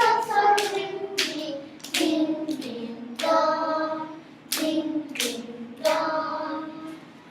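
A class of young children singing together while clapping or tapping the beat with their hands.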